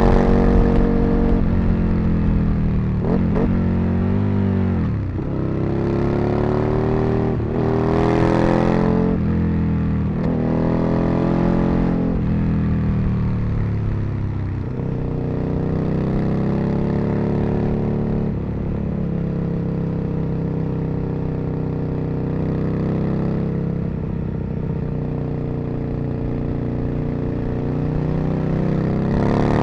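Aprilia RSV Mille's V-twin engine pulling through the gears, its pitch climbing and then falling again and again as it accelerates, shifts and slows. There are two deep drops, about five seconds in and again halfway through.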